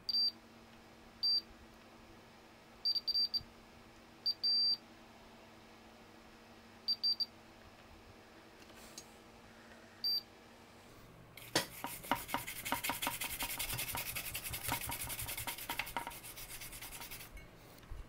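Multimeter continuity tester giving short high beeps, some single and some in quick groups of two or three, as its probes touch points on the amplifier's circuit board. About eleven seconds in, a scratchy rubbing with rapid clicks starts and runs for about six seconds.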